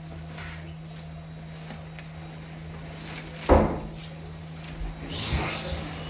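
A single sharp bang about halfway through, followed a couple of seconds later by a softer scuffing noise, over a steady low hum.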